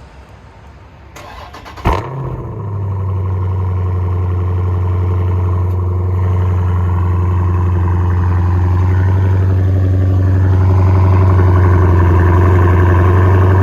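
A Dodge Scat Pack's 6.4-litre (392) HEMI V8 cranks and fires with a sharp bark about two seconds in, then settles into a loud, steady idle through a muffler-deleted exhaust.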